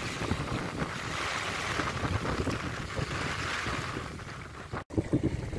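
Strong wind gusting against the microphone in an uneven low rumble, over the hiss of small waves lapping on a stony shore. The sound drops out for an instant near the end.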